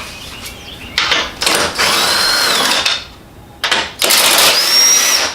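Cordless power drill/driver running in two bursts of about two seconds each, its motor whining, the second run higher in pitch; it is backing out fasteners.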